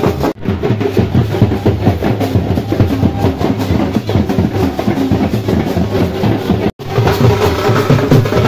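Procession drummers beating side-slung drums with sticks in a fast, dense rhythm. The sound drops out for an instant twice, about a third of a second in and near 7 seconds.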